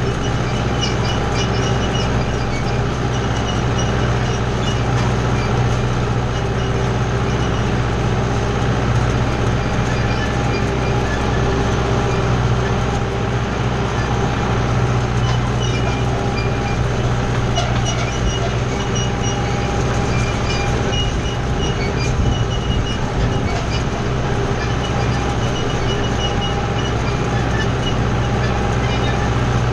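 Kubota tractor's diesel engine running steadily under load as it pulls a wheel hay rake, with a strong low hum and scattered light clicks and rattles from the machinery.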